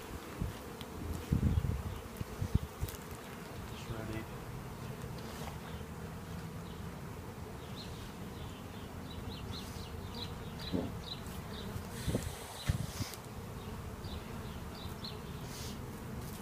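Loose honeybees from a freshly shaken package buzzing in the air all around, a steady hum. A few low bumps come near the start and again about twelve seconds in, and faint high chirps repeat through the second half.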